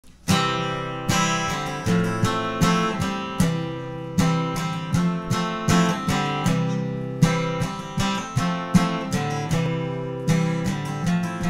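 Solo steel-string acoustic guitar playing chords, each one struck sharply and left to ring and fade before the next.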